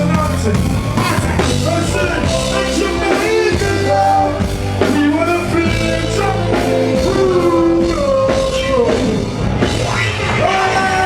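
Loud concert music played through a PA: a singing voice with held, gliding notes over a heavy steady bass and drums.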